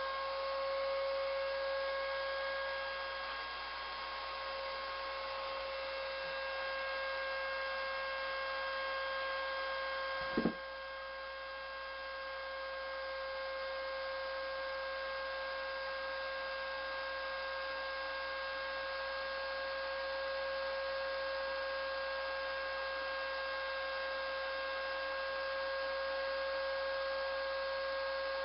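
Wet/dry shop vacuum motor running at steady speed with an even whine, pulling suction under a stack of mesh extraction bowls while ice water is poured through them. There is a brief click about ten seconds in.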